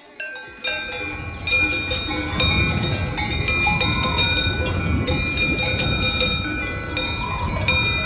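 Many livestock bells clanking and ringing at different pitches, struck irregularly and overlapping, as a grazing herd moves about. A low, steady rumble runs underneath.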